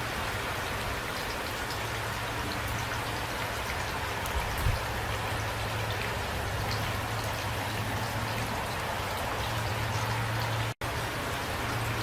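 Steady rain falling, with individual drops ticking through it. There is a brief low thump about four and a half seconds in, and the sound drops out for an instant near the end.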